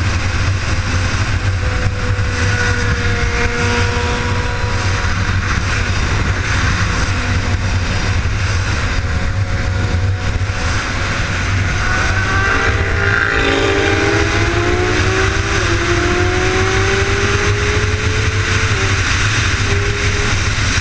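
BMW S1000RR sport motorcycle's inline-four engine running at freeway speed under a steady rush of wind and road noise; from about halfway through its pitch rises steadily as the bike accelerates.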